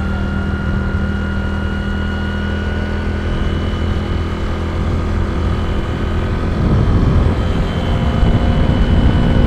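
Motorcycle engine running steadily while riding, with wind noise over it. It grows louder from about two-thirds of the way through.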